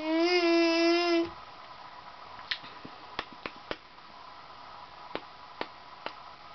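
A baby's long, held vocal sound on one steady pitch, ending about a second in, followed by a scattering of sharp clicks or taps, about seven in all.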